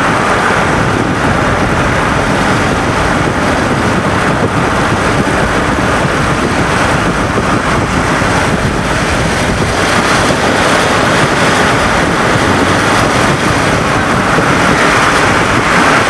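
Steady wind and road noise of a moving car, heard from inside the car, growing a little louder near the end.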